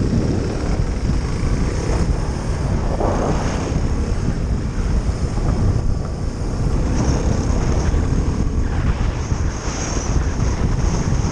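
Suzuki DR350SE single-cylinder four-stroke trail bike engine running while riding. Heavy wind buffets the microphone throughout.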